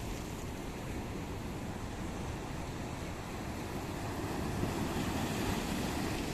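Mediterranean Sea waves washing ashore in a steady wash, with wind rumbling on the microphone; the surf swells a little louder about two-thirds of the way in.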